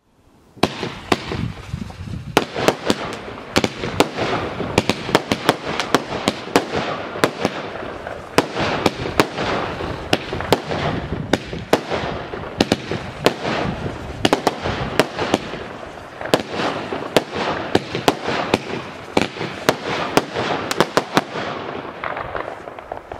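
Jorge Wenus JW08 consumer firework cake (25 shots, 20 mm calibre) firing: a rapid series of sharp reports over a continuous hiss. It starts about half a second in and fades out near the end.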